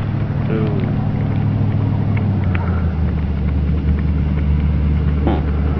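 Vehicle engine idling: a steady low hum that drops slightly in pitch about halfway through, with one sharp click near the end.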